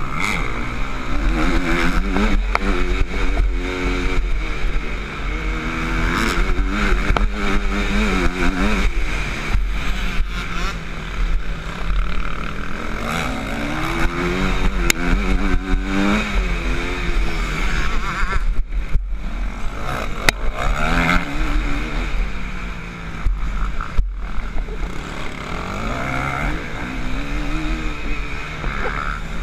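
Onboard sound of a Honda CRF 250 four-stroke motocross bike racing, its engine revs climbing and dropping again and again as the rider works the throttle and gears, with wind rush on the microphone.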